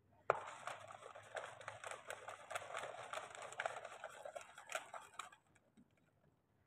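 Cap of a plastic Coca-Cola bottle clicking as it is twisted, then the Mentos-dosed Coke fizzing and crackling with many tiny pops, which cuts off about five seconds in.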